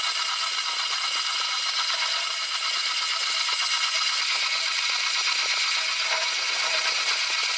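Small full-metal four-cylinder model engine kit running, its parts giving a steady high-pitched mechanical whir with a fast, even rattle.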